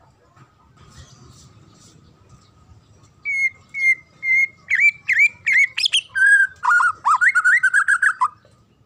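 White-rumped shama (murai batu) singing. About three seconds in it gives three clear, level whistles, then a quick run of varied sliding notes, ending in a fast wavering trill.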